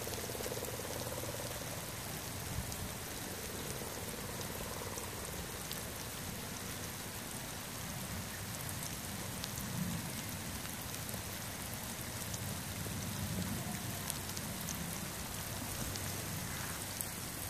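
Steady rain falling, with scattered small sharp ticks of drops landing.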